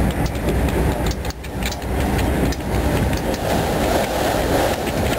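Freight train of autorack cars rolling past close by: a steady rumble of wheels on rail with scattered clicks over the rail joints.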